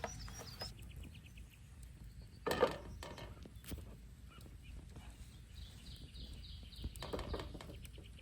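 Birds chirping outdoors in quick repeated high notes, faint under a low background hum. A short louder knock or clatter comes about two and a half seconds in.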